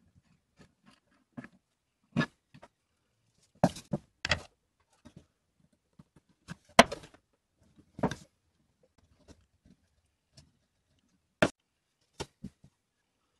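Irregular short knocks and clicks as an antique D R Barton wooden plow plane is taken apart by hand: its wooden fence, arms and metal parts knock together and against the bench, with fainter ticks between.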